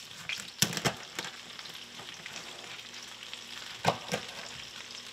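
Knife cracking through the shell of a cooked lobster tail on a wooden cutting board: a few sharp crunches, two close together about a second in and two more near the end. Underneath is a steady hiss of oil sizzling in a frying pan.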